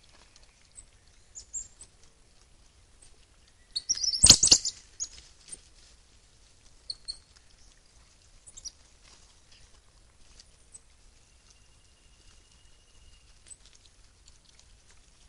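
South American coatis foraging in dry leaf litter, with scattered rustles and ticks. About four seconds in there is a loud burst of shrill, squeaky chirping, and a few brief high chirps come at other moments.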